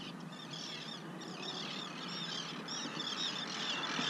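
Many birds chirping at once: a dense run of short, high, arching calls overlapping one another over a steady hiss that grows a little louder near the end.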